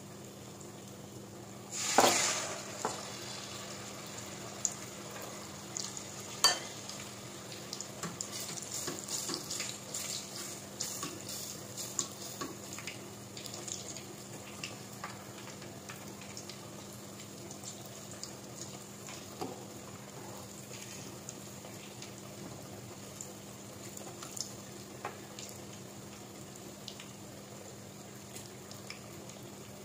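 Battered eggs deep-frying in hot oil in a pot, sizzling steadily. About two seconds in the sizzle bursts loudly, then a metal ladle clinks against the pot and stirs through the oil with dense crackling for several seconds before the sizzle settles back.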